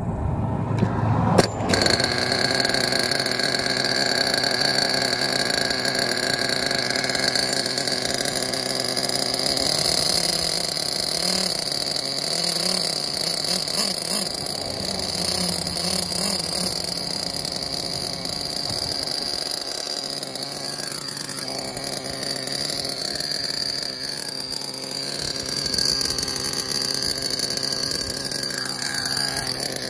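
Just-started OS .21 nitro engine in a Traxxas T-Maxx RC truck, running through a Novarossi tuned pipe at a steady idle, its pitch wavering slightly now and then.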